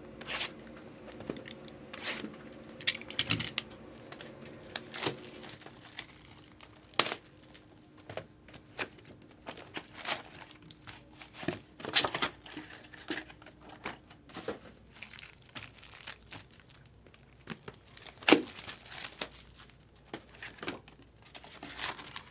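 Packs of 2023 Topps Chrome Cosmic baseball cards being torn open by hand: the wrappers crinkle, with sharp rips at irregular intervals.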